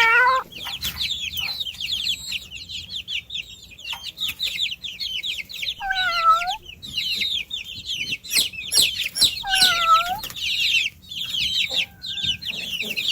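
A flock of chicks peeping in a fast, unbroken chorus of short high chirps, with two short lower calls about six and ten seconds in.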